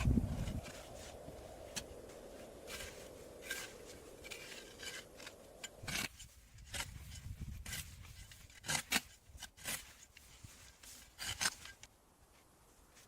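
Irregular short scrapes and rubbing sounds over a low rumbling hiss that cuts off about six seconds in; the scrapes go on sparser afterwards.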